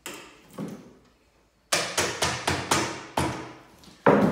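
Metal tool tapping glazier's points into a wooden window sash: two light taps, then a quick run of sharp taps at about four a second, and one louder knock near the end.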